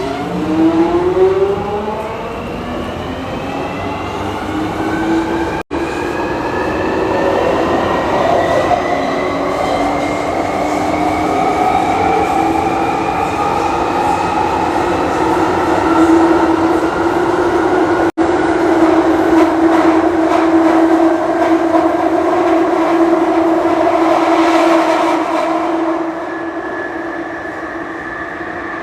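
London Underground Jubilee line train, 1996 Stock, pulling away and running through the tunnel. Its traction motor whine rises in pitch over the first few seconds as it accelerates, then settles into a steady hum over the rumble of the wheels. It gets a little quieter near the end.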